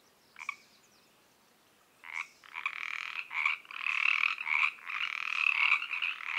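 Pacific treefrogs croaking: a single call about half a second in, then from about two seconds a chorus of many overlapping croaks starts up and keeps going.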